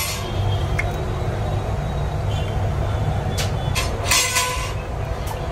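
Steady low rumble of background noise, with two short hissing bursts about three and a half and four seconds in.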